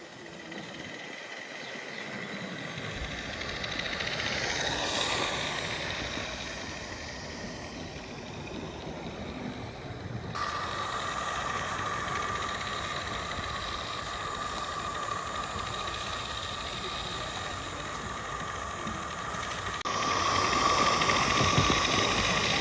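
Roundhouse 32mm gauge live steam model locomotive running on track, with steady steam hiss. It swells louder about five seconds in as it comes close, and the sound changes abruptly twice.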